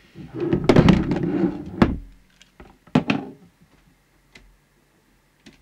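Knocks and scraping as a CB radio's metal case is picked up and turned around on a workbench, with cables dragging. A long scrape in the first two seconds, then a single knock about three seconds in.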